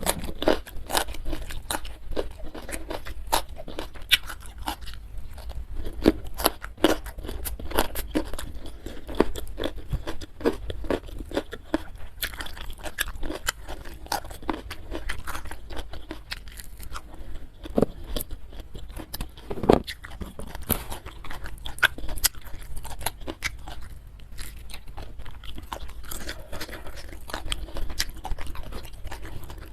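A person chewing and crunching food close to the microphone, with many crisp crunches in quick succession; one heavier bite or knock is louder than the rest about two thirds of the way through.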